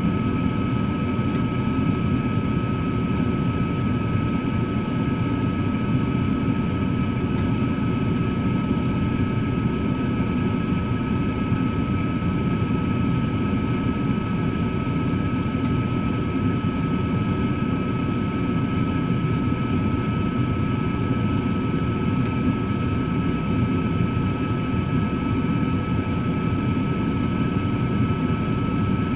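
Cosori 13-quart air fryer oven running while cooking steaks: its convection fan blows with a steady whoosh and a thin, steady high whine from the motor.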